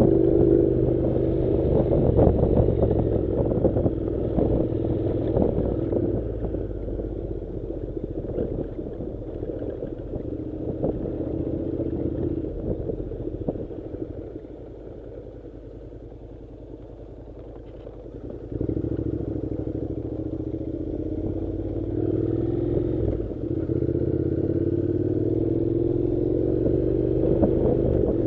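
Honda NC700's 670 cc parallel-twin engine running as the motorcycle rides along a dirt road, with scattered clattering from the rough surface. About halfway through the engine drops to a quieter, lower note for a few seconds, then comes back in suddenly and rises in pitch as the bike accelerates near the end.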